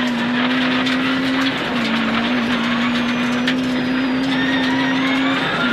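Rally car engine held at high revs on a gravel stage, its steady note dipping briefly twice, over road hiss with scattered ticks of gravel.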